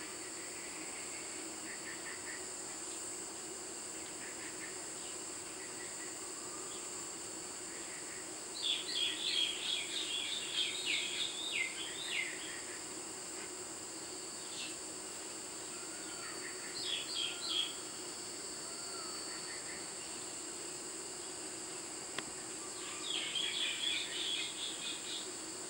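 Steady high-pitched insect drone throughout, with three bursts of rapid chirping bird calls: a long run about a third of the way in, a short one in the middle and another near the end.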